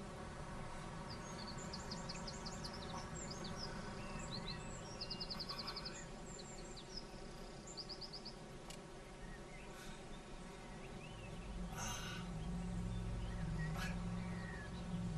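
Faint bird chirps and short trills over a steady low hum, with a low rumble rising in the second half.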